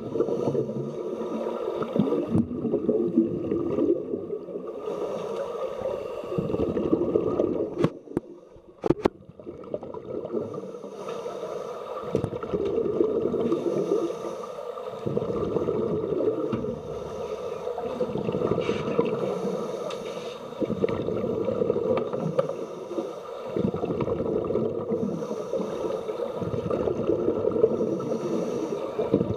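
Underwater bubbling of scuba divers' exhaled air from their regulators, swelling and dipping in bursts every few seconds, heard through the water. There are a few sharp clicks about eight seconds in.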